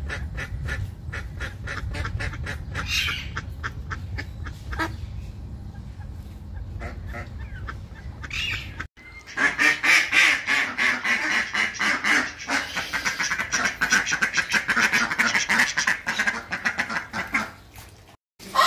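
Domestic ducks quacking. About halfway through, the sound cuts to a loud, rapid chorus of quacks from several ducks. Before that the calls are quieter over a low rumble.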